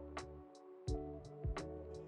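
Background music: sustained chords over a steady beat, with regular hits about every 0.7 seconds.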